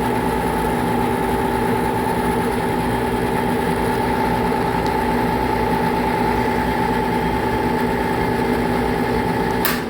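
HVAC unit running loud in a steady drone with several held hum tones over a rough rattle, the noise that the technician suspects comes from the blower. Near the end a sharp click, after which the hum drops away.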